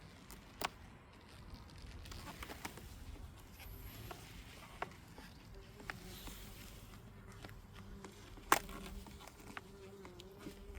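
Honeybees buzzing around an opened hive, a wavering hum that grows stronger about halfway through. Scattered sharp clicks and knocks, the loudest about eight and a half seconds in.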